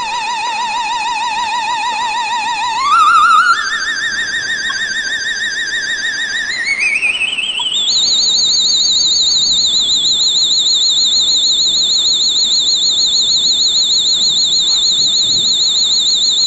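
Warbling electronic tone from a two-555-timer sound-effects circuit through a speaker: a fast-wobbling tone near 1 kHz jumps higher about three seconds in, glides up again around seven seconds, and settles into a high warble for the rest of the time.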